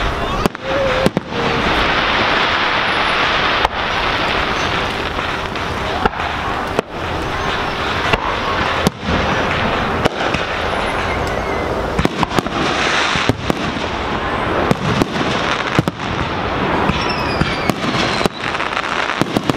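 Aerial fireworks shells launching and bursting: many sharp bangs and crackles in quick, irregular succession over continuous noise.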